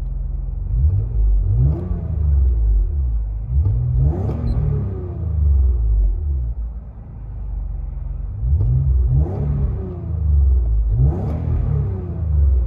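2007 Acura TL Type S 3.5-litre V6 with a Tsudo cat-back exhaust, heard from inside the cabin. It idles and is blipped several times, each rev climbing and then dropping back to idle.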